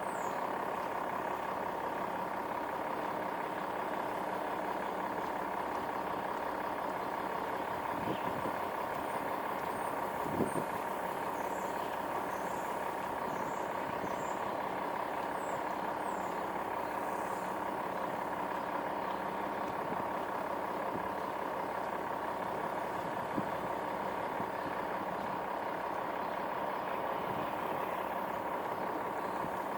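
A steady mechanical drone with a held hum, with a couple of brief knocks about eight and ten seconds in and faint high chirps now and then.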